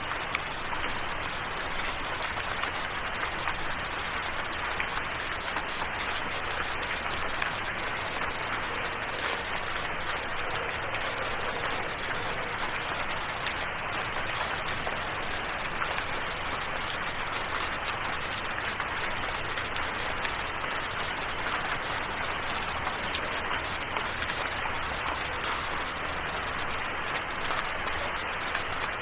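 Steady rain falling, an even, unbroken hiss of many drops with faint scattered taps.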